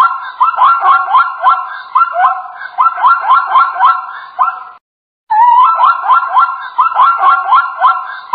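Zebra calling: a long run of short, high, rising yelping barks, several a second. It breaks off about five seconds in and starts again half a second later.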